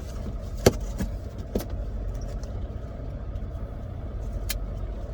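A cardboard box being opened and handled, with a few sharp clicks and knocks over a steady low rumble.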